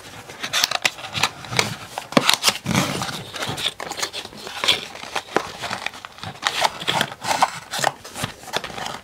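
Cardboard box and zip-lock plastic bags of small 3D-printed track links being handled: irregular rustling and crinkling with light clicks.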